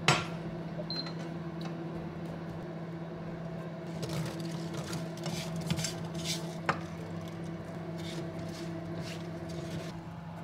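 A frying pan knocks down onto an induction hob, then the hob hums steadily under the pan. A spatula scrapes and taps in the pan as the pieces are stirred. The hum stops near the end as the pan is lifted off.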